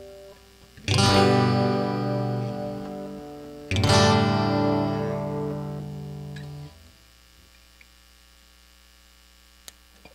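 Guitar chords strummed twice, about three seconds apart, each left to ring out and fade to near silence.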